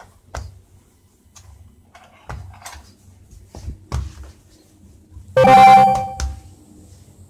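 Hands rolling and pressing a log of dough on a bamboo cutting board, with a few soft knocks against the board. About five seconds in, a loud ringing tone sounds for under a second and cuts off with a click.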